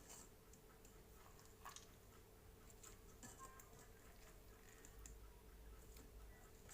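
Near silence: room tone with a faint steady hum and a few soft clicks.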